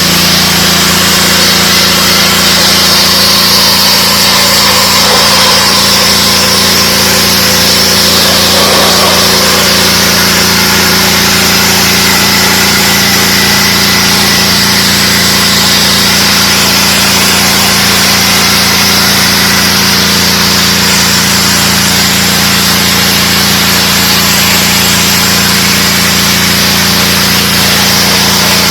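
DeWalt 3600 psi gas pressure washer running steadily: a constant engine drone under the hiss of the high-pressure water spray.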